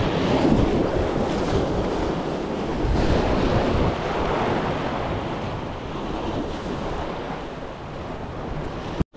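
Sea waves washing against a rocky shore, with wind buffeting the microphone: a steady rushing noise, heavy in the low end. It cuts out for an instant near the end.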